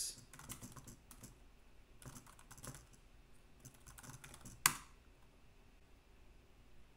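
Typing on a compact USB keyboard with trackpad: a run of quick key clicks as the Wi-Fi passphrase is entered, with one louder keystroke about two-thirds of the way through.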